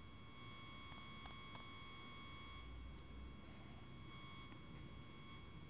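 Faint, steady high-pitched electronic whine over a low hum, with a few faint clicks: background noise of the recording while no one speaks.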